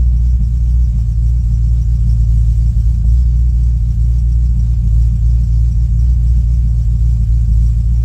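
Ford V8 engine idling steadily, a low even rumble heard from inside the car's cabin.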